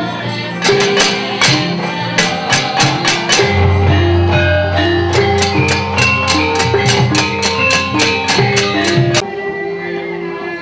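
Javanese gamelan music: short ringing metallophone notes over a deep sustained low tone, driven by sharp clattering knocks in a quick rhythm. The loud playing breaks off suddenly about nine seconds in, leaving softer melodic playing.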